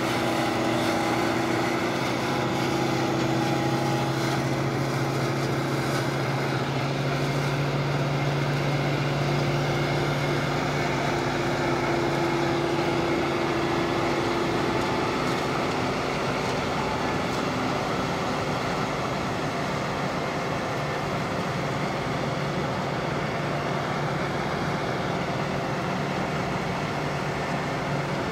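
Laverda 1740 AL combine harvester's engine and threshing machinery running steadily under load while harvesting alfalfa for seed, a constant even hum.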